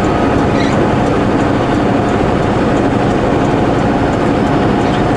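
Semi-truck engine running with road noise, a steady drone while driving.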